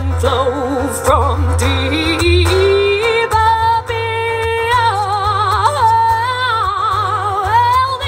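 A woman singing solo, live, with wide vibrato and quick vocal runs. Her voice slides slowly upward about two seconds in, then holds long wavering notes.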